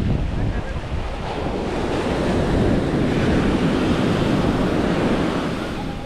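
Atlantic Ocean surf breaking and washing up the sand at the waterline as a steady rush of foam. It swells louder a couple of seconds in, with wind rumbling on the microphone.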